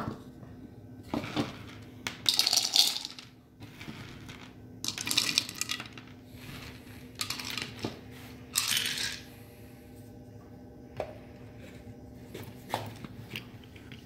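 Dry grain corn kernels clattering in four short bursts as they are handled and poured into an electric coffee grinder, followed by a few light clicks.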